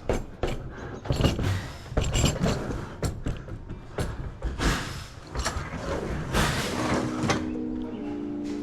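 Irregular knocks, bangs and clatter of hard items being handled and tossed about. Background music comes in about seven seconds in.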